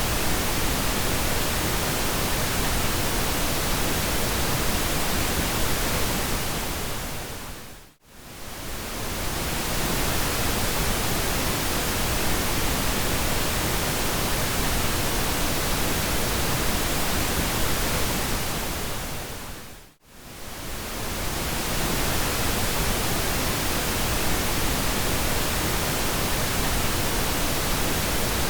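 Steady pink noise: an even, soft hiss. It fades out and back in twice, briefly, about eight seconds in and again about twenty seconds in.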